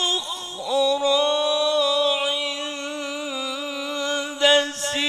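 A man chanting a Qur'an recitation in long, ornamented melodic phrases. After a short gliding turn, he holds one slightly wavering note for about four seconds, then breaks off and starts a new phrase near the end.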